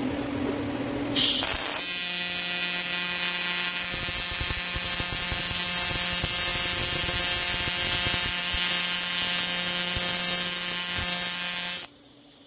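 Welding arc on aluminum: a loud hiss starts about a second in, then a steady electric buzz with many even overtones joins it. Both cut off suddenly near the end as the arc is broken.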